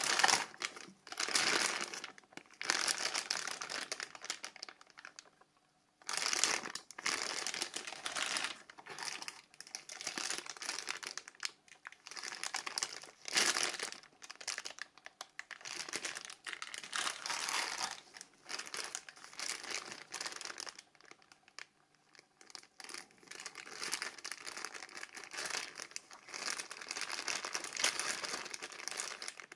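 Clear plastic accessory bags crinkling and rustling as gloved hands turn them over, in irregular bursts with a short pause about five seconds in and another about two-thirds of the way through.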